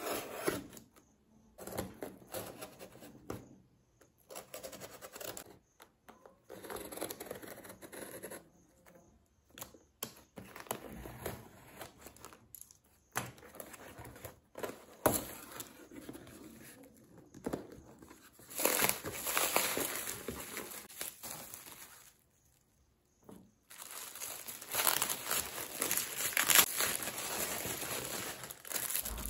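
Packing tape on a cardboard parcel being slit with a utility knife and torn off, in short bursts with silent pauses between. From about two-thirds of the way in, plastic packaging and bubble wrap crinkle louder and for longer.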